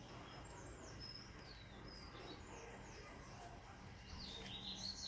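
Birds singing faintly: a string of high, falling whistled notes, then a louder burst of chirping near the end.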